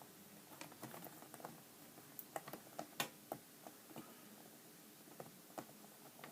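Faint, scattered clicks and light taps of hands handling a laptop's LCD panel and plastic lid, the sharpest click about halfway through.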